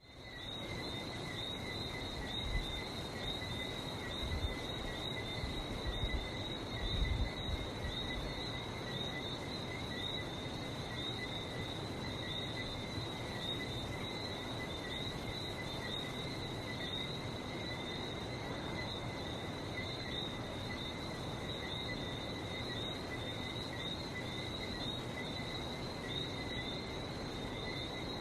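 A dense, unbroken chorus of Antillean whistling frogs: many small frogs giving high, repeated chirping whistles that merge into a steady shrill. A few low rumbles sound in the first several seconds.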